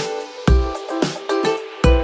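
Background music with a regular beat: deep bass-drum hits under sustained pitched notes.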